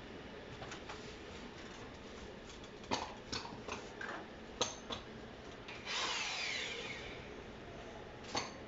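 A power drill runs faintly for about a second and a half, after a series of sharp knocks and taps. It is boring through a store ceiling to fit a speaker.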